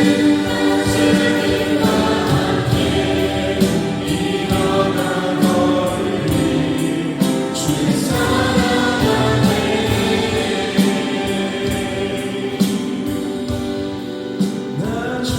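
Music: a choir singing, many voices holding notes together.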